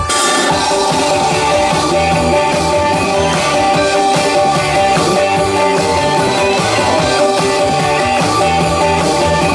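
Instrumental intro of a rock-style pop song kicking in abruptly, loud, with a steady beat and guitar, before any singing.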